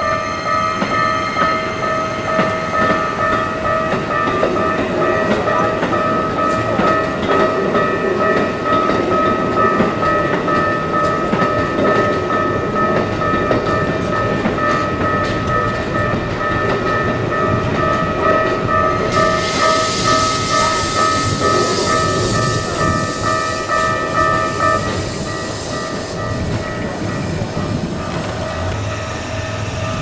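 Japanese level-crossing warning bell ringing steadily while Keikyu trains run over the crossing with a clatter of wheels on rail. From about two-thirds of the way through, a louder rushing hiss comes from the passing train. The bell stops a few seconds before the end.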